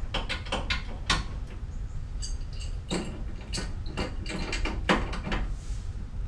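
Wrenches clicking and clinking on the metal nut of a water heater supply hose fitting as it is tightened down to compress its rubber gasket, in an uneven run of sharp knocks and a few ringing metallic clinks.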